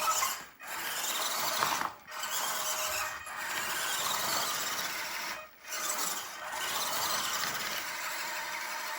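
Small electric motor and plastic gearbox of a radio-controlled construction vehicle running with a grinding whine. It stops and restarts briefly four times.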